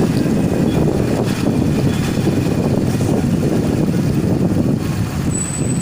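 Steady rumble of a moving vehicle on the road: engine and road noise with no let-up.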